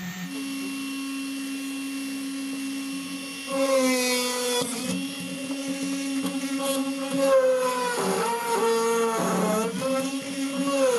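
Homemade press drill's 775 DC motor spinning the chuck and bit with a steady whine. About three and a half seconds in it gets louder and its pitch sags and recovers repeatedly as the bit is pressed into a block of wood.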